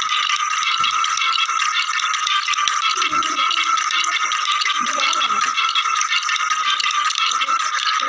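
Background music carried by a continuous rattling, shaker-like percussion with a steady high tone under it.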